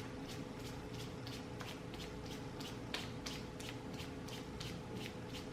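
Hands rubbing over facial skin in quick repeated massage strokes, about three a second.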